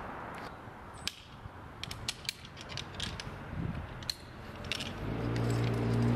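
Scattered sharp clicks and clinks of metal climbing hardware, a hand ascender and carabiners, being handled and clipped onto a rope. About five seconds in, a steady low hum swells up and becomes the loudest sound.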